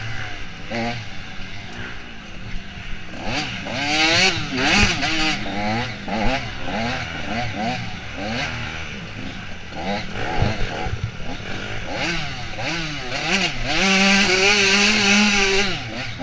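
Offroad dirt bike engine heard from on the bike, revving up and down again and again as the throttle is worked, held high for over a second near the end. A few sharp knocks cut through.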